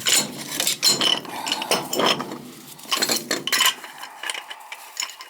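Metal tools and parts clinking and rattling against each other in quick, irregular clicks while being handled, busiest over the first few seconds.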